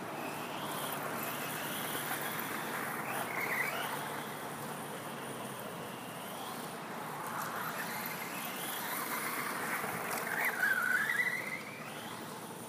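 Traxxas Slash 4x4 RC short-course truck driving laps, its Castle Creations Mamba Max Pro 2400kV brushless motor whining up and down in pitch as it accelerates and slows, over a steady hiss of tyres. The whine comes closest and loudest twice: about a quarter of the way in and again about three-quarters through.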